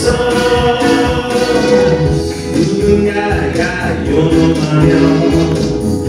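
A man singing a Korean pop song live into a handheld microphone, over loud backing music with a steady beat, heard through a concert hall's sound system.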